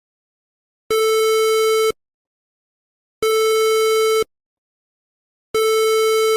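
Electronic emergency-alert tone sounding three times: a steady, low, buzzy beep about a second long, repeating roughly every two seconds with silence between beeps.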